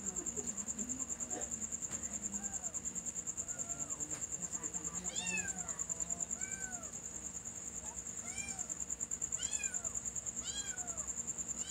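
A young cat meowing repeatedly, about eight short rising-and-falling meows roughly a second apart, calling to be let in through a gate. Insects trill steadily and high-pitched underneath.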